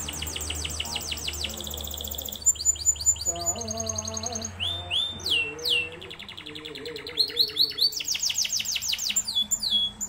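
Domestic canary singing a continuous song: fast trills of quickly repeated high, downward-sweeping notes, broken a few times by slurred whistled notes that rise and then drop sharply.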